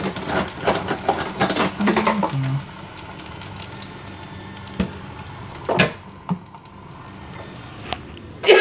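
A metal utensil scraping and tapping against a frying pan as sliced red chilies and garlic are stirred in hot oil over a steady sizzle, busy for the first couple of seconds, then just the sizzle with a few light taps. A sudden loud burst comes near the end.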